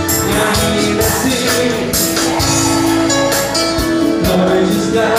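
Live worship music: an electronic arranger keyboard playing sustained chords over a drum rhythm.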